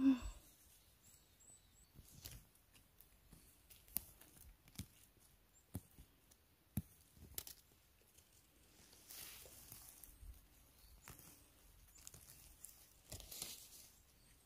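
Faint rustling with scattered small snaps and clicks as mushrooms are picked and grass and debris are pulled from the forest floor by hand. There are two longer bursts of rustling, about nine seconds in and near the end.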